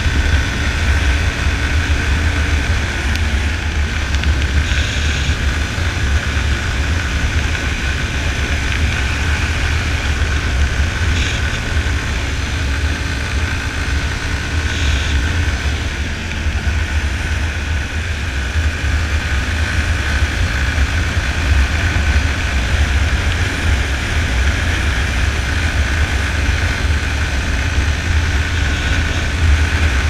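Yamaha Fazer 250's single-cylinder four-stroke engine running steadily at road speed, with a heavy, even rumble of wind on the microphone.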